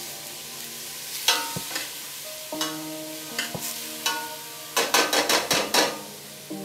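A cooking utensil scraping and stirring onions and garlic frying in olive oil in a stainless steel pot, with a light sizzle underneath. A few separate scrapes come first, then a quick run of about six strokes near the end.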